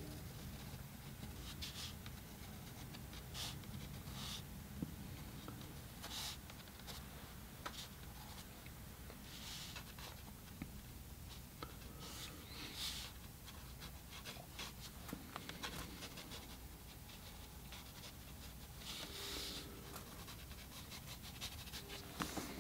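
Pencil scratching faintly across taped-down watercolor paper in short, irregular sketching strokes.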